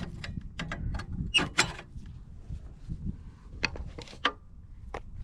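Irregular metallic clicks and clanks of hand tools working on the float and plunger valve of a Nelson automatic horse waterer, whose float is stuck. The loudest pair comes about a second and a half in.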